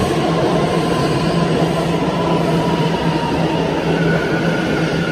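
R179 subway train running past a station platform: a loud, steady rumble of wheels on rails, echoing in the underground station, with a motor whine that enters about four seconds in and slowly falls in pitch.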